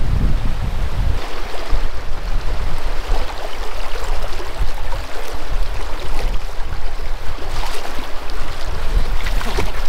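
Fast-flowing river water rushing over a stony ford around the legs of people wading it barefoot, with splashes from their steps. Wind buffets the microphone with a heavy rumble in the first second.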